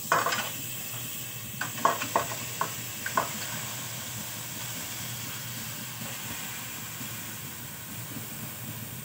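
Marinated chicken pieces sizzling with a steady hiss in a hot, oil-free stainless-steel pan. A few sharp knocks and clinks of the glass bowl against the pan come in the first three seconds or so, as the chicken is tipped in.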